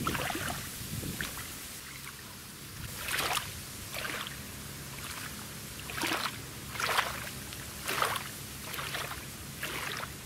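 Small waves lapping and splashing against a grassy, reedy shoreline, a soft splash about every second. A faint steady low hum runs underneath from about two seconds in.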